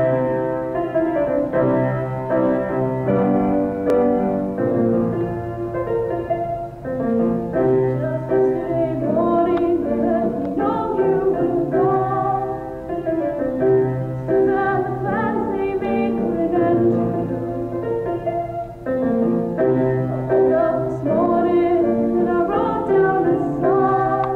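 Piano music with a voice singing over it, the voice entering and dropping out in phrases.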